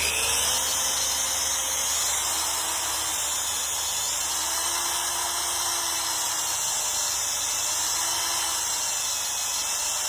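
Electric drill running continuously as the bit bores through a repaired weld bead on aluminum, the motor pitch wavering slightly under load. The repair is harder than the base aluminum, so the bit takes longer to get through.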